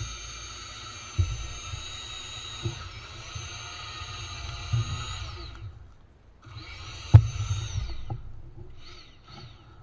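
Sun Joe TJ604E 13.5-amp electric tiller running, its motor whining steadily while the tines churn soil, with occasional low thuds. About five and a half seconds in the motor winds down, starts again a moment later, cuts out about a second after, then is switched on twice briefly near the end; the loudest sound is a sharp knock about seven seconds in.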